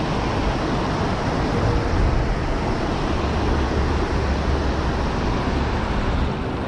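Steady rush of shallow river water flowing over a concrete riverbed and around the angler's feet, with a low rumble underneath.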